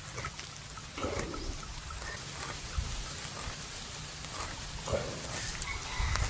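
Buffalo chewing the cud: soft, irregular clicks and crunches of its jaw working. A louder low noise rises near the end.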